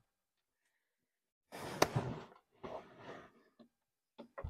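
Cardboard box and packaging being handled: two brief scraping rustles, the first with a sharp click in it, then a couple of dull thumps near the end.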